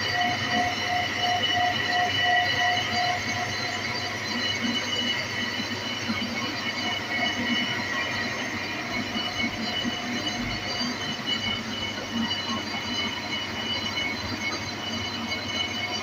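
Machine work on an alloy wheel rim: a steady mechanical run with a high metallic squeal of held ringing tones, and a pulsing tone during the first three seconds.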